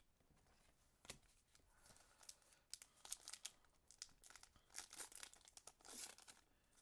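Quiet tearing and crinkling of a 2020 Topps Gypsy Queen baseball card pack's wrapper as it is ripped open, in a series of short rustles.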